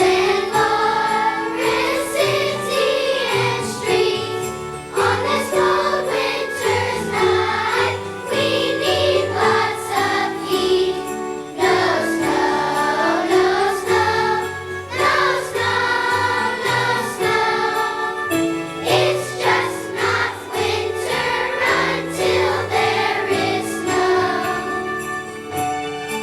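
Children's choir singing a Christmas song with musical accompaniment.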